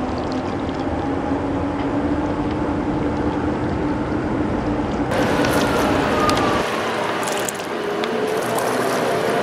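Diesel engine of a passing inland motor tanker running with a steady drone, mixed with the rush of water from its bow wave. About five seconds in, the sound turns brighter, and soon after, the low rumble drops away.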